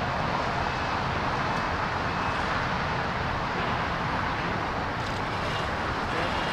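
Steady outdoor background noise, with no distinct knocks, crashes or voices.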